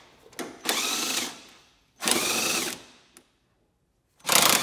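Cordless 1/4-inch electric impact driver running in three short bursts, hammering out the headlight's mounting bolts; the motor's pitch rises and falls with each pull of the trigger.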